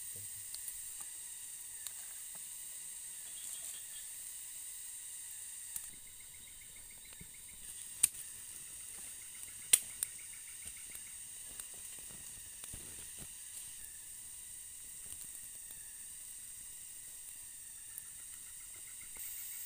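Steady high-pitched drone of tropical forest insects, with faint rapid chirping trills and two sharp clicks about 8 and 10 seconds in.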